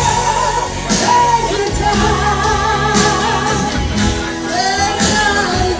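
A singer's voice, held notes wavering with vibrato, over amplified backing music.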